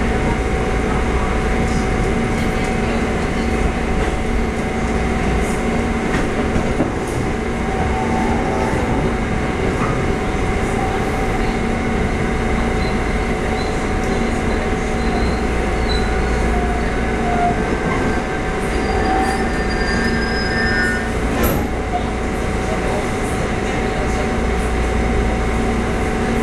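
Inside a Taiwan Railway EMU400 electric multiple unit under way: a steady running rumble and hum with constant tones, and a few brief high squeals and a click about halfway through.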